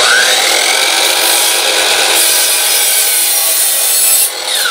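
DeWalt miter saw motor starting with a short rising whine, then the blade cutting through a wooden board. Near the end the cut finishes and the motor whine falls as the blade winds down.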